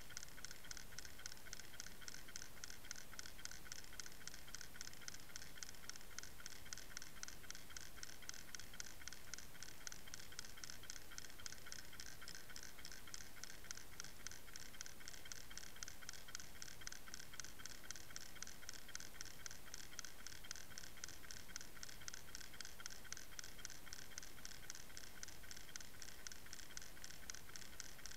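Steady, fast, even ticking, several ticks a second without a break, picked up by a camera underwater.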